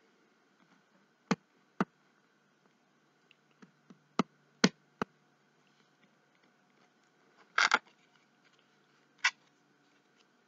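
Scattered sharp taps and clicks of fingers pressing small white cherub embellishments down onto a card on a cutting mat: about half a dozen single taps, with a quick cluster of knocks about three quarters of the way through.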